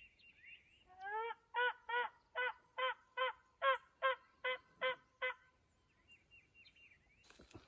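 Turkey yelping: a run of about ten evenly spaced yelps, roughly two and a half a second. It starts about a second in and stops a little past halfway.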